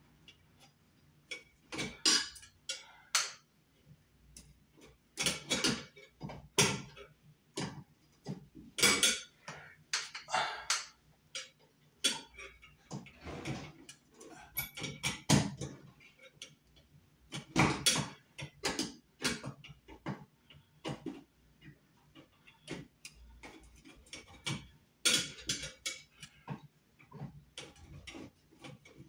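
Irregular small clicks, scrapes and rattles of metal and plastic as a screw is worked into the mounting of a ceiling-mounted exit and emergency light fixture, in short clusters with gaps between.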